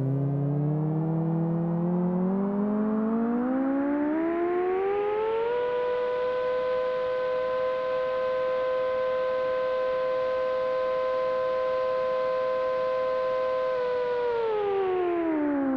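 A siren winding up from a low pitch to a steady wail of two close tones. It rises over the first five seconds, holds, and winds down near the end.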